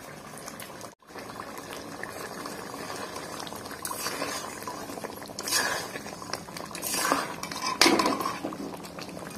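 Mutton curry gravy simmering and bubbling in an aluminium kadai, with a steel spatula scraping and clinking against the pan several times, the loudest clank a little before the end. The sound cuts out for a moment about a second in.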